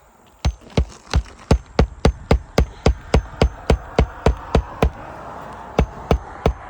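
Claw hammer driving roofing nails through asphalt shingles, a fast steady run of blows about three to four a second, with a short pause about five seconds in before the blows resume.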